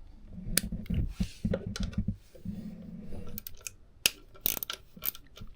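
Irregular small metallic clicks and taps from a hex key turning out a screw on the BMW R1100GS's front engine cover, with some dull rubbing and handling noise between the clicks.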